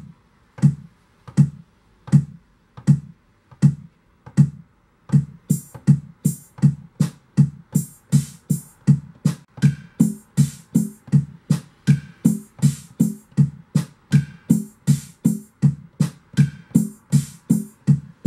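Electronic drum-machine beat tapped out on a MIDI pad controller. It opens with a lone low kick drum hitting about once every three-quarters of a second. From about five seconds in the hits come twice as fast, and sharp, bright higher hits join to make a fuller repeating beat.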